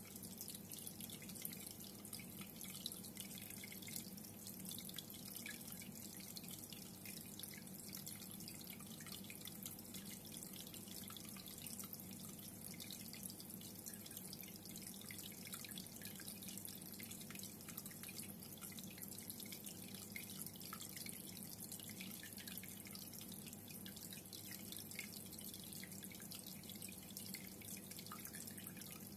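Reef aquarium water trickling and dripping steadily, with many small drips and bubbles over a faint, steady low hum.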